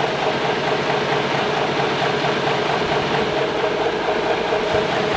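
Cummins 855 Big Cam 14-litre six-cylinder diesel engine idling steadily while its fuel is switched from vegetable oil back to diesel.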